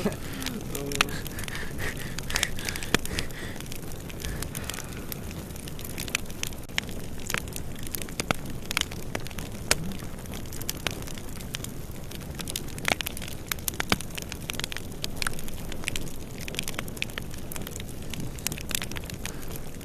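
Irregular crackling: many sharp clicks and pops over a steady hiss.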